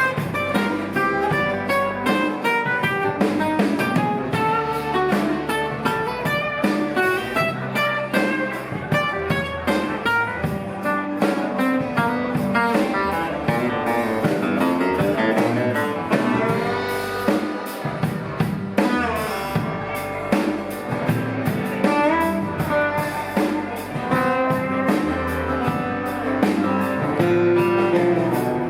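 Live band playing an instrumental passage, guitar lines over drums.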